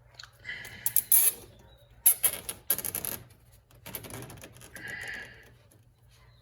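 Plastic zip ties being ratcheted tight around radiator hoses: several short spells of quick rasping and clicking, with a few handling knocks.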